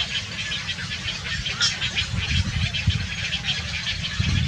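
Birds calling with many quick, rapidly repeated chirps over a steady low rumble.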